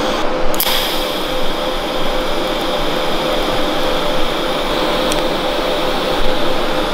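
TIG welding arc striking about half a second in and then running steadily with a hiss and a high whine while tack-welding a flange onto an exhaust pipe.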